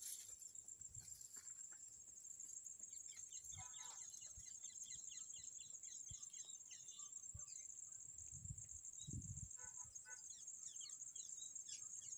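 Faint, steady high-pitched insect chirring, with a few short higher chirps around four and ten seconds in and some soft low bumps.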